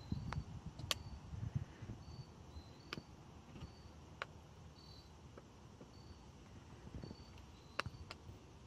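Faint cricket chirping: short high chirps repeating about once a second. Over it come a few sharp taps, the loudest about a second in and near the end.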